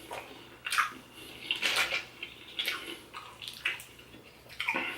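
Close-miked wet eating sounds of saucy seafood: irregular smacking, slurping and squishing, several short bursts a second.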